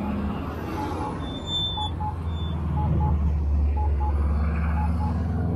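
Traffic passing through an intersection: a low steady rumble of a bus and cars driving by. Over it, a crosswalk push-button locator tone beeps about once a second, with a brief high squeal about one and a half seconds in.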